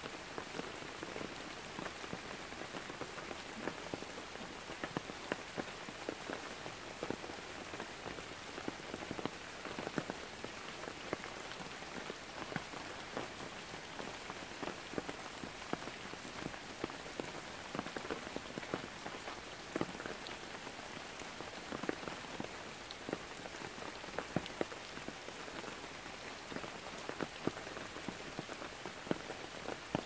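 Heavy rain falling on forest foliage: a steady hiss with many separate close drop hits standing out, several a second.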